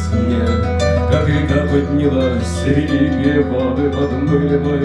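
Solo acoustic guitar played fingerstyle in an instrumental passage: a plucked melody over held low bass notes.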